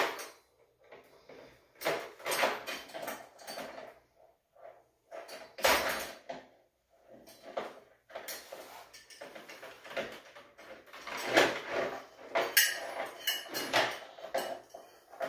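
A giant steel split ring being worked by hand onto a saber-tooth trap drag: irregular metallic clinks and scrapes of ring, drag and chain, with a few short pauses.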